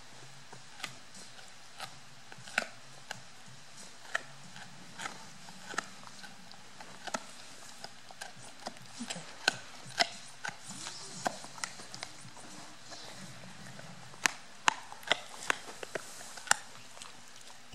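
Dog gnawing a rawhide chew: irregular sharp cracks and crunches of its teeth on the hide, coming thicker in a quick run near the end.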